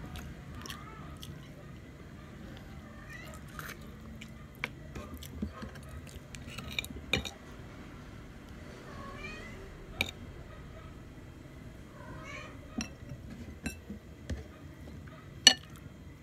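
A cat meowing several times, short rising-and-falling calls. Sharp clinks of a spoon against a plate come between the calls, and the loudest clink is near the end.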